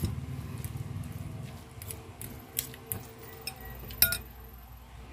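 A few sharp clinks and taps of a metal spoon against a ceramic bowl as they are handled and set down, each with a short ring. The loudest comes about four seconds in.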